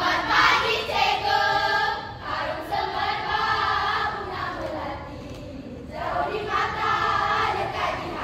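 A chorus of about nineteen teenage girls' voices chanting in unison in Malay, holding sung phrases in a choral speaking (bicara berirama) performance. The voices drop away for about a second and a half midway, then come in together again.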